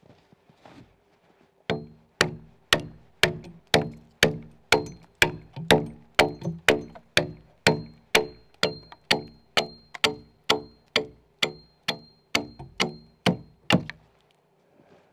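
Hand axe chopping into a timber log, hewing out the notch of a log-corner joint. It lands about two dozen sharp strikes at roughly two a second, each ringing briefly. The strikes start a couple of seconds in and stop near the end.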